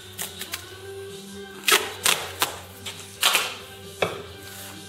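Tape being pulled off the roll and wrapped around a metal tube, in a series of short ripping pulls.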